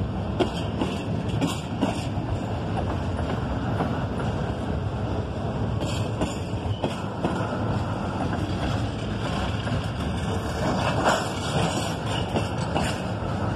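Double-stack intermodal well cars rolling past close by: a steady rumble of steel wheels on rail, with occasional sharp clanks.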